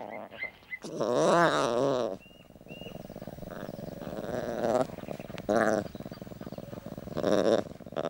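Lion cubs calling: four wavering, pitched calls, the first and loudest about a second in, a longer one in the middle, then a short one and a last call near the end.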